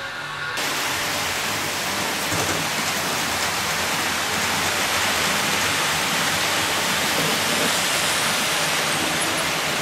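Model trains running on the layout's track: wheels and motors make a steady rushing hiss that comes in abruptly about half a second in and then holds level.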